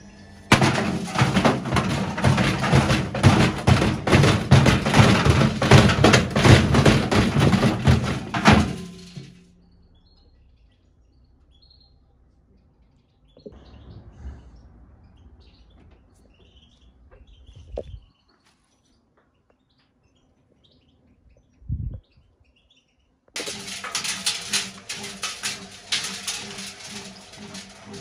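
Whirlpool front-loading washing machine running with stones and bricks in its drum: a loud, dense clattering and banging that stops about nine seconds in. After a quiet stretch with a few faint knocks and a short thump, the clattering starts again about twenty-three seconds in over a steady hum.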